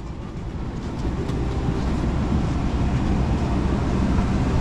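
Steady low rumble of a moving vehicle, getting a little louder about a second in.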